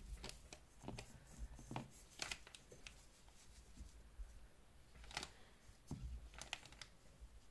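Faint, irregular small clicks and rustles from hands handling a wristwatch: the leather strap is worked off the case lugs and the watch is set down on a silicone mat.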